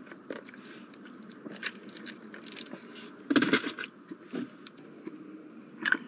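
A plastic drink cup being handled, with scattered small clicks and rattles. There is a louder knock and rattle about three seconds in as the cup is set back into the car's cup holder.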